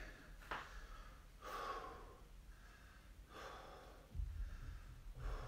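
A man breathing audibly through the mouth after a workout, a few breaths about two seconds apart, with a low rumble in the last second or so.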